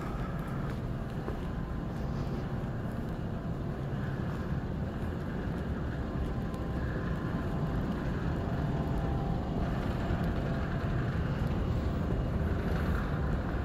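Steady low rumbling background noise of a large, near-empty airport terminal hall, growing slightly louder toward the end.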